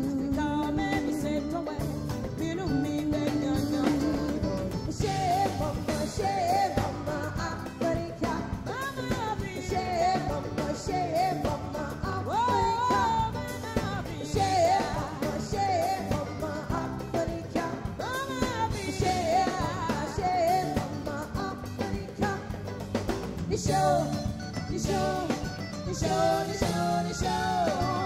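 Live band performing a song: a woman singing lead over electric guitars and a drum kit.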